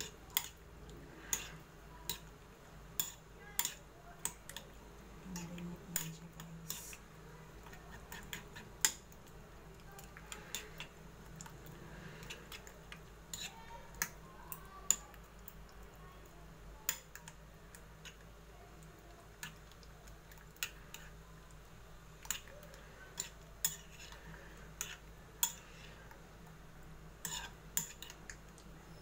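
A spoon clinking and scraping against a ceramic bowl while stirring chicken pieces in beaten egg and sauce, in irregular sharp taps a second or so apart.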